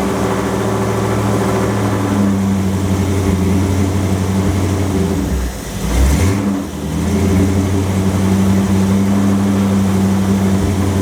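Hot rod's engine running steadily under load through its 727 TorqueFlite automatic. About six seconds in, the revs drop briefly and then climb again.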